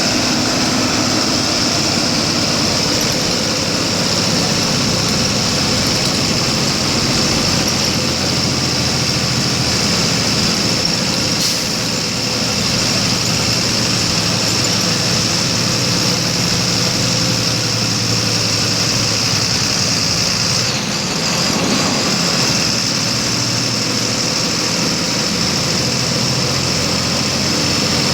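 Volkswagen 17.230 EOD bus engine running steadily.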